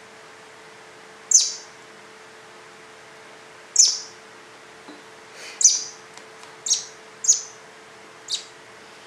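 Fledgling robin giving six short, high chirps, each a quick downward sweep, spaced a second or two apart: the begging calls of a hungry baby bird waiting to be fed.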